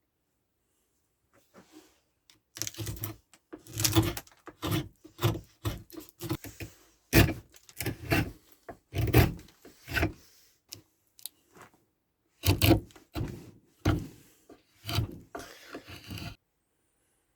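An irregular series of knocks, clinks and short rubbing scrapes, like a tool and a metal or wooden workpiece being handled and worked by hand. The strokes come in uneven clusters, with a brief pause about two-thirds of the way through, and stop shortly before the end.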